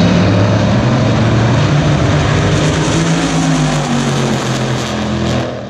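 Drag racing car's engine running hard at high revs with a steady drone, its pitch sagging a little, then falling away in loudness near the end.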